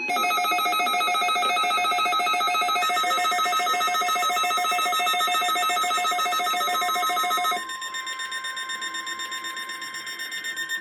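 NOAA weather alert radios sounding their warning alarm for the weekly test: a loud, rapidly pulsing electronic alarm for about seven and a half seconds, then a quieter steady single tone, the weather radio warning alarm tone, running on to the end.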